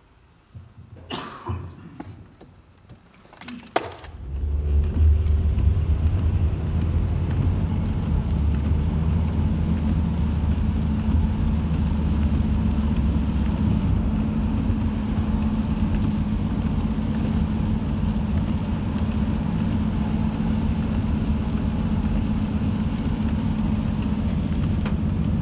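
A car driving on a rain-wet road, heard from inside the cabin: a steady, loud rumble of engine and tyres with a hiss of spray. It starts about four seconds in, after a few faint clicks.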